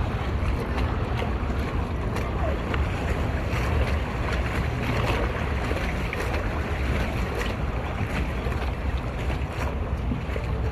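Steady wind rumbling on the microphone over choppy water slapping against a floating dock and moored jet skis.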